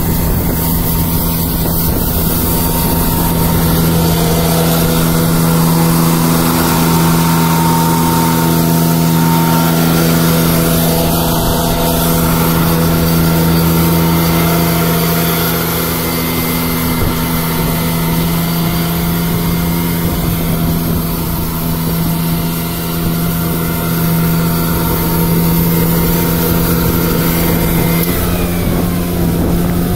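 Ranger MN-F2000 diesel vacuum street sweeper running while sweeping: a steady engine and suction-fan hum of several held tones over a constant rushing noise, dipping slightly in pitch near the end.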